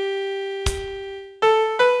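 Piano playing a song melody one note at a time: a long held note fades out, a short thump sounds about two-thirds of a second in, and two new notes, each a step higher, are struck near the end.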